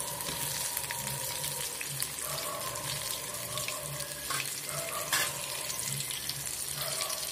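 Masala-coated fish frying in hot oil in a shallow pan, a steady sizzle with fine crackling and a couple of louder pops a little past the middle.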